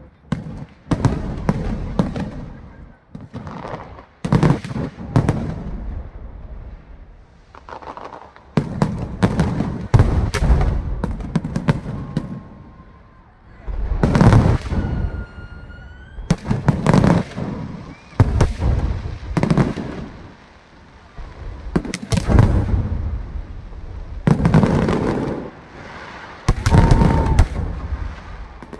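Aerial fireworks going off in clusters of booms a few seconds apart, with crackling, and a rising whistle about halfway through.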